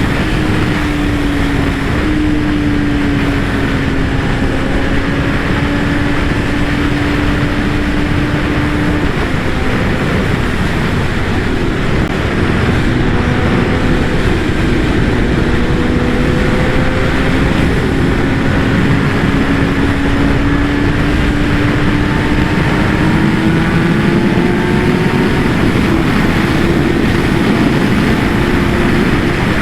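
Kawasaki ZX-10R's inline-four engine and exhaust at a steady cruise, its pitch sagging slowly in the middle and rising again near the end, under heavy wind noise.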